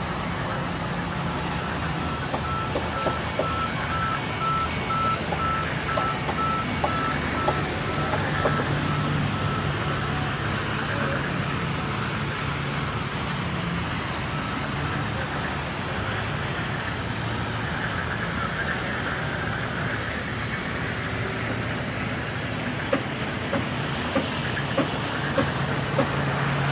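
Large band sawmill running and cutting lengthwise through a big log: a steady low drone with scattered light ticks.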